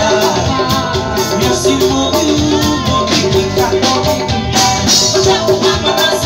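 Live band music: a woman singing lead into a microphone over electric guitar, keyboard, drum kit and hand drums, playing to a steady upbeat rhythm.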